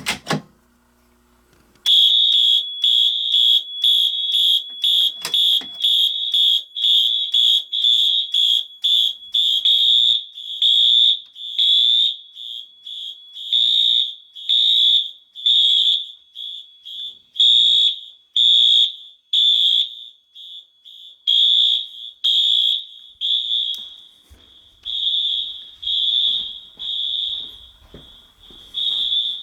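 A click as a fire alarm pull station is pulled. About two seconds later the fire alarm horns sound: a loud, high horn tone pulsing about twice a second in march time, with the pulses growing uneven and overlapping later as several Wheelock MT horn strobes and other horns sound out of step.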